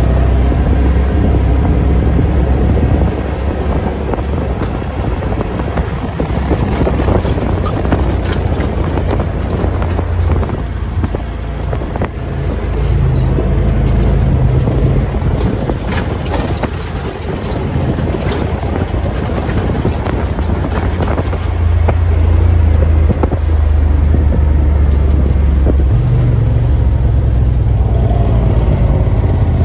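Off-road vehicle's engine running under way on a dirt trail, its pitch rising and falling as the throttle changes, over tyre and wind noise with frequent short knocks over bumps.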